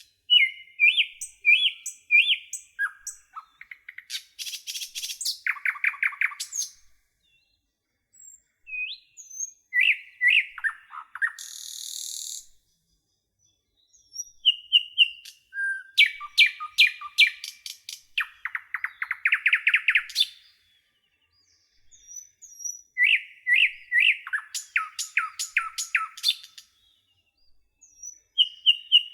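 A songbird singing in phrases of a few seconds each, made of quick high chirps and fast trills, with silent gaps of one to two seconds between phrases. A brief hiss comes about twelve seconds in.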